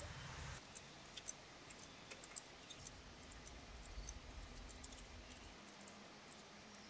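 Faint, low rumble of distant thunder, swelling about halfway through and cutting off near the end, with scattered faint ticks.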